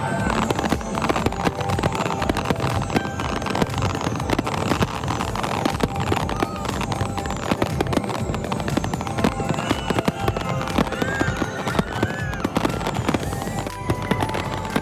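Fireworks display going off: a dense, continuous run of sharp bangs and crackles, with many short high-pitched falling whistles, heard over music.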